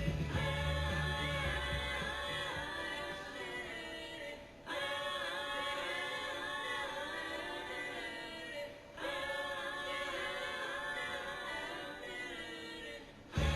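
Wordless layered vocal harmonies, sung a cappella in three phrases of about four seconds each, with short breaks between them. The bass and beat are absent, coming back at the very end.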